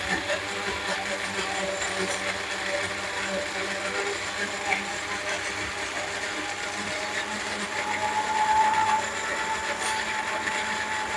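Push-down personal blender running steadily, its motor puréeing chopped green peppers, celery and leeks with water into a green liquid. The whine grows louder for about a second roughly eight seconds in.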